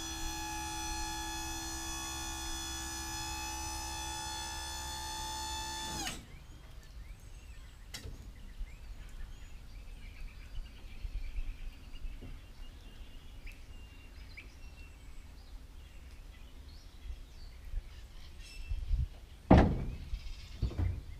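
Electric hydraulic pump of a Pierce dump bed kit whining steadily as it powers the pickup's bed up, cutting off abruptly about six seconds in. After a quiet stretch while the bed lowers by gravity, a loud thunk comes near the end as the steel bed settles back onto the frame, followed by a couple of smaller knocks.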